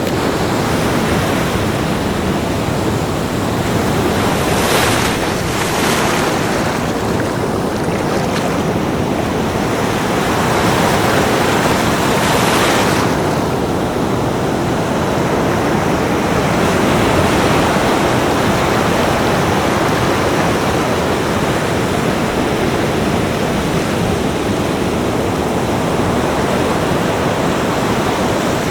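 Ocean waves breaking and washing up a beach: a steady rush of surf, swelling with breakers about 5, 6 and 12 seconds in and again near the end.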